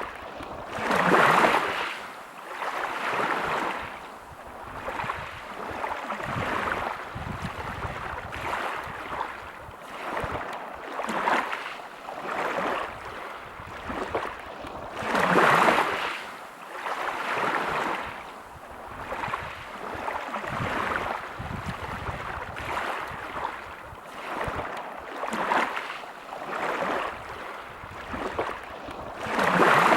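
Sea waves breaking and washing over a pebble beach, the rush of surf rising and falling every couple of seconds. The biggest surges come about a second in, midway, and at the very end.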